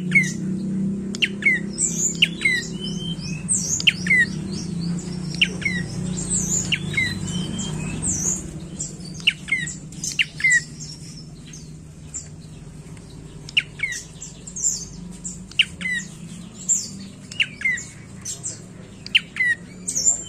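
Prenjak coki (rufous-tailed tailorbird) calling: a long run of loud, sharp, downward-sweeping chip notes, one or two a second. A low steady hum lies underneath for the first eight seconds or so, then fades.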